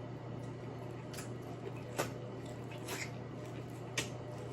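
Close-up eating sounds: a few sharp mouth smacks or clicks, about one a second, over a steady low hum.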